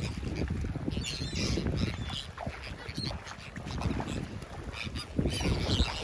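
A feeding flock of gulls calling over the water, with clusters of calls about a second in and again near the end, over a steady low rumble of wind on the microphone.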